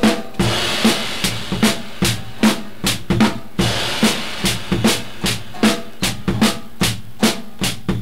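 Drum kit playing, with sharp hits coming about two to three times a second, played back from a 1968 45 rpm vinyl single on a turntable.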